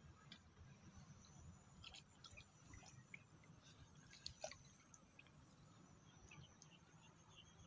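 Near silence: faint outdoor ambience with scattered soft clicks and brief high ticks.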